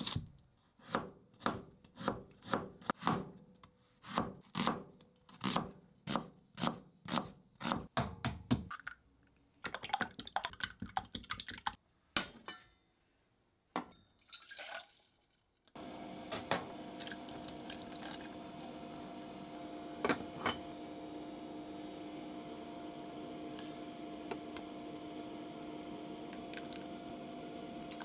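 Global chef's knife chopping vegetables on a plastic cutting board in quick, regular strokes for about eight seconds; then chopsticks beating an egg in a glass bowl, and water pouring into a stainless steel pot. From about sixteen seconds in there is a steady hiss and hum as the pot heats on an induction cooktop, with a few knocks of the pan.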